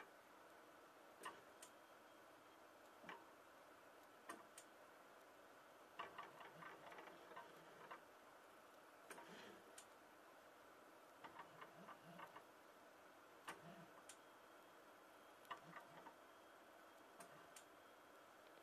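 Near silence: faint, irregular sharp clicks, sometimes single and sometimes in short clusters, over a low steady hum.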